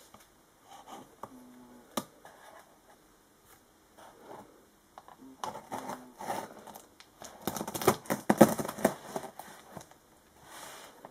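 Scissors cutting and scraping through plastic packing tape along the seam of a cardboard parcel, with the tape crinkling and the blades clicking, in short uneven bursts. A dense run of crackly cutting and crinkling comes about eight seconds in and is the loudest part.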